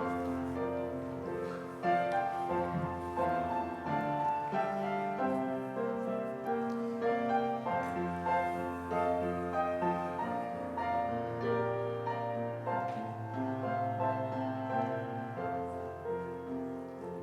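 Instrumental music led by piano, sustained chords changing every second or so over a low bass line, fading out near the end.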